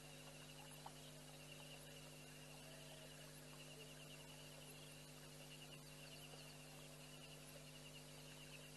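Near silence: a steady electrical hum, with a faint high insect trill in rapid pulsing trains.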